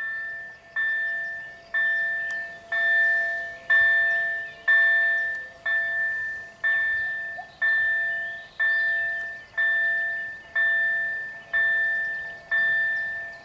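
Railway level crossing warning bell ringing steadily, about one stroke a second, each stroke a bright chime that dies away; it signals that the barriers are down and a train is approaching.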